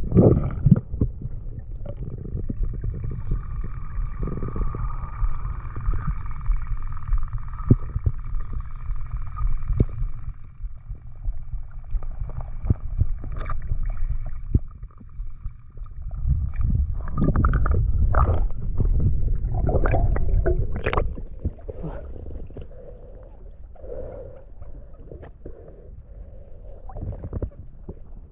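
Underwater sound picked up by a diver's camera: a low rumble of moving water with many sharp clicks and gurgles. A faint steady whine runs from about two to fourteen seconds in, and the rumble and clicking grow louder a few seconds later.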